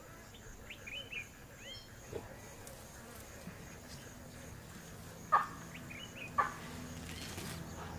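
Faint savanna ambience: scattered high bird chirps over a light insect buzz, broken past the middle by two short sharp sounds about a second apart.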